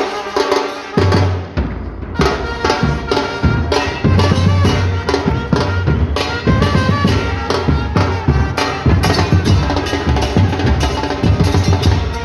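Music with a steady drum beat and a strong bass line; the high end drops out briefly about two seconds in.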